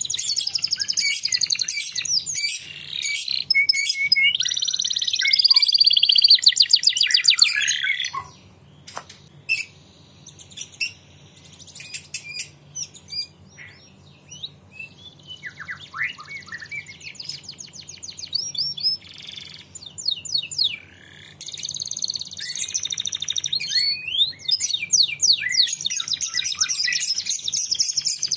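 Domestic canary singing: long runs of fast trills and rapidly repeated notes, loud for the first eight seconds, then only scattered short chirps, then full song again for the last third.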